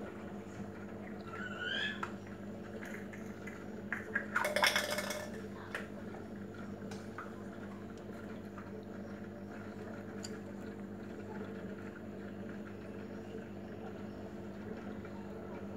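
Aquarium pump humming steadily, with water bubbling in the tank. A brief louder noisy burst comes about four and a half seconds in, and a short gliding tone comes near two seconds.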